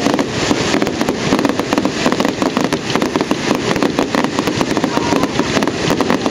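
Fireworks crackling: a dense, continuous run of small sharp bangs and pops in quick succession, with no single big boom standing out.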